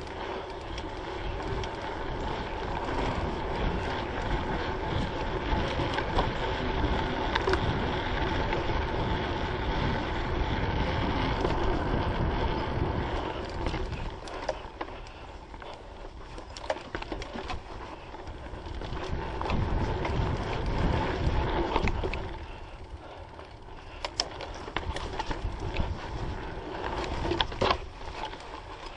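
Mountain bike ridden along a dirt trail, heard through a GoPro Hero3: wind rumble on the microphone, tyre noise and the rattle of the bike over bumps. It is louder through the first half; in the quieter last few seconds sharp clicks and knocks stand out.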